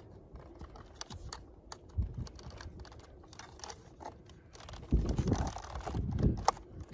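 Hard plastic door-trim parts clicking and tapping as the replacement interior door handle piece is handled and worked into the door panel, with heavier thumps and rubbing about five seconds in.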